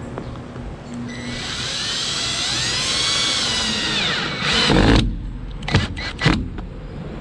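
Cordless drill driving a screw to fix the slide topper fabric at the end of its rail: the motor whine rises in pitch for about three seconds, then falls away as it stops. A loud knock follows, then two sharp clicks.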